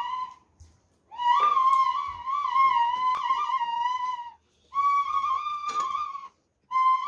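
Bamboo flute (bansuri) playing a slow melody, the tone wavering slightly, in phrases of one to three seconds broken by short pauses for breath.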